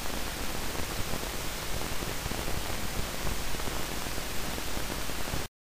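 Steady hiss of room tone and microphone noise with a thin, high-pitched steady tone on top, cutting off abruptly near the end.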